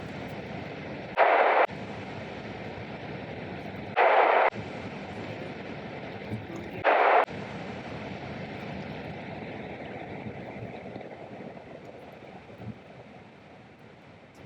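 Steady car-cabin noise from driving slowly on a snowy road, broken three times, about three seconds apart, by a sudden half-second burst of hiss-like noise that starts and stops abruptly. The cabin noise fades near the end.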